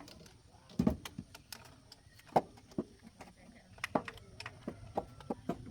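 Irregular light clicks and knocks of tools and metal parts being handled during car repair work, the sharpest a little past the middle.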